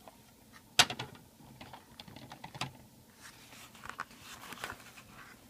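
Trading cards being handled: a sharp click about a second in, then scattered light clicks and rustling as cards are slid and shuffled.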